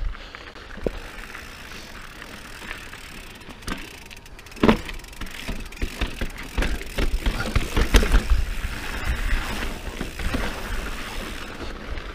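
Mountain bike rolling fast down rocky dirt singletrack: steady tyre noise on dirt and rock, with the bike rattling and knocking as it hits rocks, the sharpest knocks a little under halfway through and again about two-thirds in.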